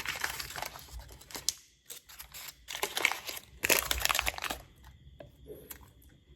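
Crinkling of a plastic cake wrapper being handled, in three bursts of rustling over about four and a half seconds.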